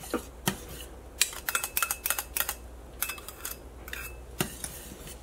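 Wire whisk clicking and scraping against a stainless steel saucepan as egg yolks are beaten into a thick sauce, in quick irregular taps, some with a faint metallic ring.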